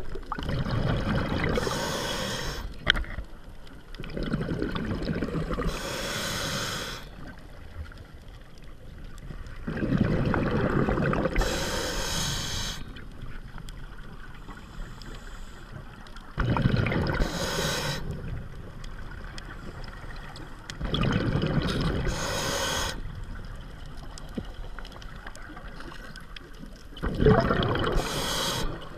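Scuba diver breathing through a regulator underwater: about six breaths, one every five to six seconds, each a hiss through the regulator and a rush of bubbling exhaled air, with quieter water noise between.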